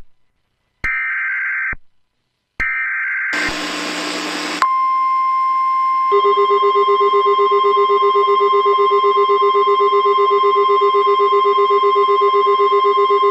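Emergency Alert System SAME header: the last two of its screechy digital data bursts, each about a second long with a second's gap, then about a second of static. Then the steady NOAA Weather Radio warning alarm tone, joined about six seconds in by a lower pulsing buzz, the attention signal that comes before an alert message.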